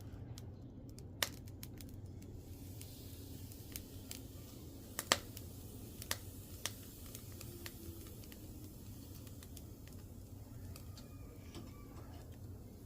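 Charcoal fire crackling as it catches in a grill made from an old steel toolbox. A quick run of small crackles comes at the start, then scattered sharp pops over a low steady background.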